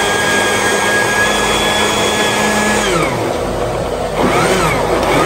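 Electric blender grinding onions into a paste: the motor runs at a steady pitch, winds down when it is switched off just under three seconds in, then starts again and spins back up about a second later.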